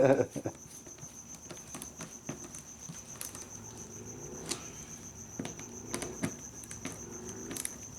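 Scattered small clicks and taps of a screwdriver and screws as the passenger sensor is fastened into the underside of a motorcycle seat. A steady, high, rapidly pulsing chirr of crickets runs underneath.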